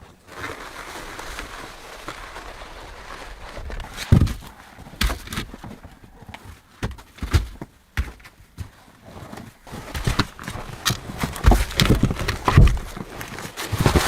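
A steady hiss for about four seconds, then irregular heavy thuds and knocks, roughly one every second or so, through the rest of the time.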